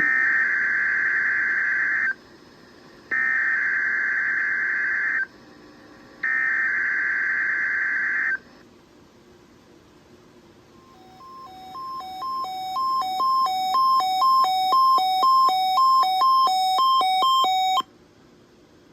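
Emergency Alert System test signal on a NOAA Weather Radio broadcast. First come three bursts of SAME header data tones, a harsh digital warble about two seconds each with roughly a second's gap between them. After a short pause, the two-tone attention signal fades in, alternating between a lower and a higher tone about twice a second, and cuts off abruptly near the end.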